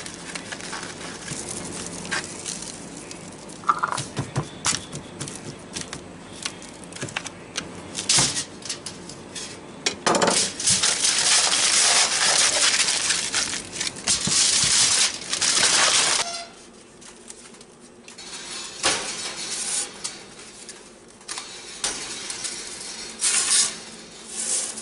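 Aluminium foil crinkling and rustling as it is handled, with scattered small clicks and knocks; the crinkling is loudest for several seconds from about ten seconds in. Near the end, a metal clank as the Coleman camp oven's door is opened.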